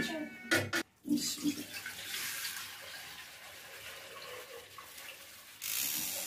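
Milk poured from a plastic bag into a steel pot, a steady splashing stream that gets louder near the end. A few short rustles of the plastic bag in the first second.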